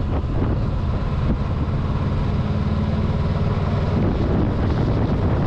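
2022 Honda CB500X's parallel-twin engine running as the motorcycle rides along, with wind noise on the microphone; the engine note holds steady, then changes about four seconds in.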